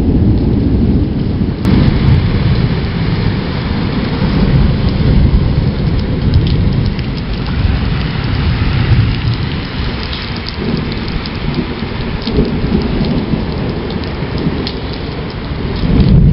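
Heavy thunderstorm rain pouring and spattering on wet surfaces under continuous rolling thunder, with scattered sharp drip ticks. The thunder eases a little past the middle and swells again near the end.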